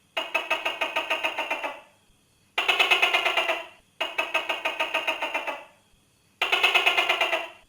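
Tokay gecko calling: four bursts of rapid, rattling pulses, about seven a second, each lasting a second or so with short silent gaps between.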